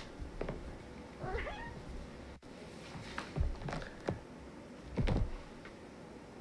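A domestic cat meows once, briefly, about a second in. Several soft thumps and knocks follow, the loudest near the end.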